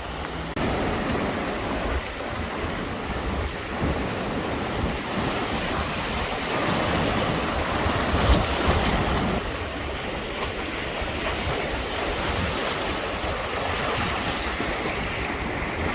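Sea waves washing in, with wind buffeting the microphone in low rumbling gusts.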